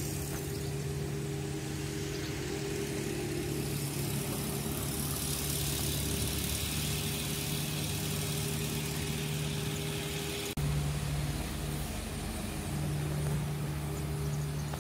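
A vehicle engine running steadily under road and wind hiss, with an abrupt cut about two-thirds of the way through, after which the engine hum goes on.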